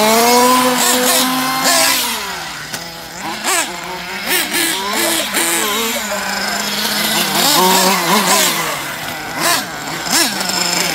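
Kyosho Inferno NEO ST 3.0 RC truggy's small nitro engine running hard, its pitch held high for about two seconds, then dropping and rising repeatedly as the throttle is worked on and off, climbing again near the end.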